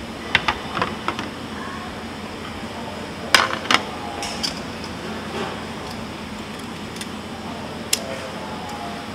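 Sharp clicks and clinks of metal tongs, steel trays and dishware: a few light ones at the start, two loud ones about three and a half seconds in, and one more near the end. Under them, the steady hum of a restaurant with faint voices.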